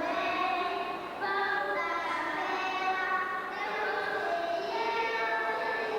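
A group of young children singing a song together, holding each note for about a second before stepping to the next.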